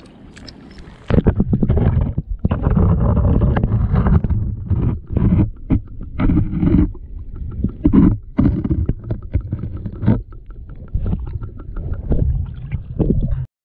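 Muffled sloshing and gurgling of seawater against a camera held underwater in the shallows, loud and uneven with many short breaks, starting about a second in.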